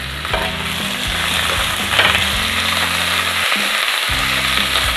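Minced mutton sizzling in hot mustard oil with fried onions in a steel pot as it is stirred with a spatula; the sizzle grows louder about two seconds in. Background music with low sustained notes plays underneath.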